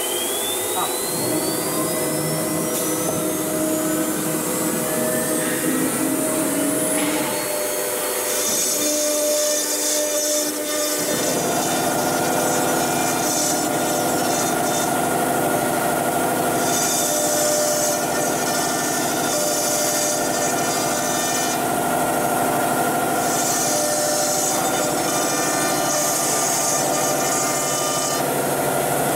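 The 9 kW air-cooled spindle of a CNC router spins up with a whine that rises in pitch over several seconds, then runs at a steady pitch. From about eleven seconds in, it engraves letters into a wooden board, and the cutting noise swells and fades as the bit moves.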